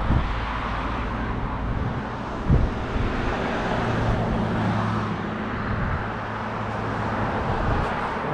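Steady rushing road and wind noise while cycling beside a road, with a vehicle driving past and its engine hum strongest around the middle. Two short bumps, one right at the start and one about two and a half seconds in.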